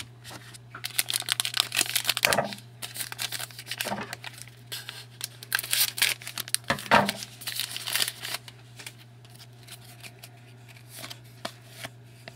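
Crinkling, rustling and tearing of plastic wrapping as trading cards are handled, dense for several seconds and then sparser, with a low steady hum underneath.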